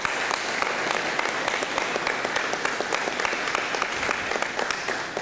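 Audience applauding: many hands clapping in a steady patter that begins to die away near the end.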